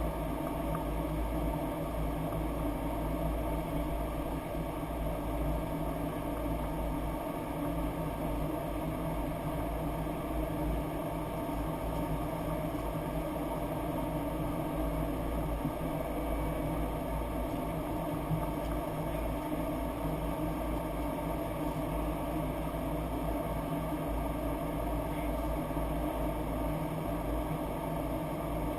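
Steady flight-deck noise inside a Boeing 737-800 on approach: an even rush of airflow over a low hum, with a few faint steady tones and no change in level.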